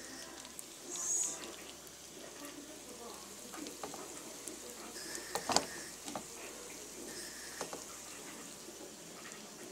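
Strips of food sizzling steadily as they fry in oil in a wok, with a brief louder burst of sizzle about a second in. Scattered clicks of a utensil against the pan, the loudest about five and a half seconds in.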